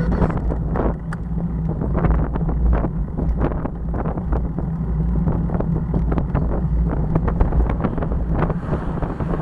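Wind buffeting the microphone of a bike-mounted camera while cycling, over a steady low road rumble. Frequent irregular knocks and rattles come through the mount from the bumpy shoulder.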